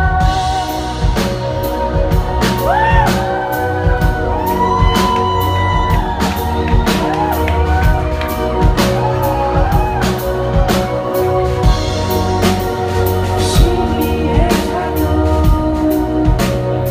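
Live band music: a steady drum-kit beat under held keyboard or synth tones, with a high female voice swooping up and down in long gliding notes.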